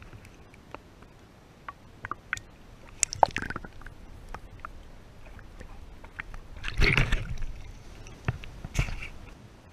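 Water sloshing and splashing right at a waterproof camera held at the lake surface, with scattered small clicks and knocks. The loudest splashing comes about seven seconds in, with another short splash near nine seconds.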